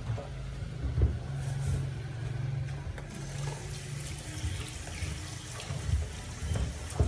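A large steel pot at a hard rolling boil, the water bubbling and rumbling steadily under a layer of foam. A ladle skims the foam, and a few short knocks come about a second in and near the end.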